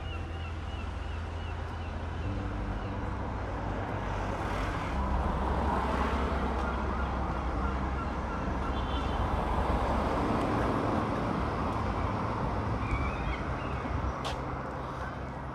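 Town road traffic noise: a steady hum of traffic that swells for several seconds in the middle, as of a vehicle going by, then eases off. A single sharp click comes near the end.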